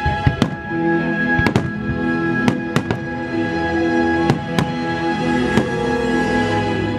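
Fireworks going off in a series of sharp bangs, about nine spread irregularly over several seconds, over orchestral music with held string notes.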